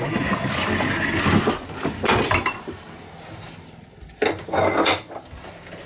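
Clattering, knocking and scraping of metal and wood as a heavy Myford ML7 lathe is wheeled round and shifted into place, with a second short burst of knocks a little after four seconds.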